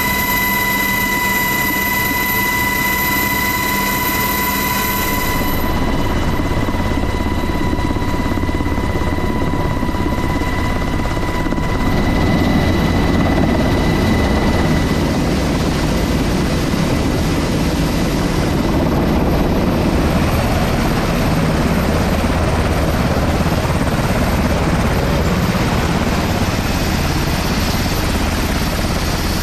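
Helicopter turbine engine and rotor running. A steady high whine, as heard from inside the cabin, gives way about six seconds in to a broad rushing rotor noise that grows louder about twelve seconds in.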